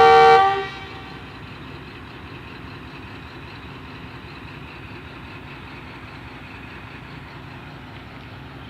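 Pakistan Railways ZCU-20 diesel locomotive sounding a loud horn blast that cuts off about half a second in, followed by its diesel engine running steadily.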